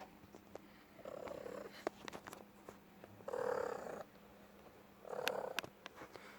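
Domestic cat purring, the purr swelling three times about two seconds apart with each breath.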